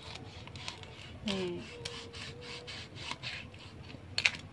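Rhythmic crunching rasps, about two a second, of crisp grilled pig-head skin. A short falling hum of a voice comes about a second in, and a sharp clatter of cutlery comes near the end.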